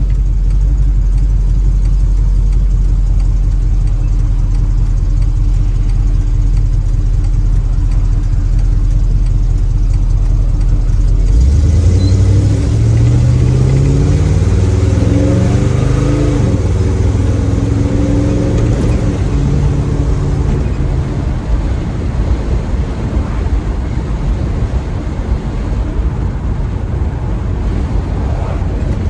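Small-block Chevy 350 V8 running through a new exhaust in a 1936 Chevy coupe, heard from inside the windowless cab. It drones steadily, then about a third of the way in it accelerates, its pitch climbing for several seconds. Wind and road noise grow as speed builds.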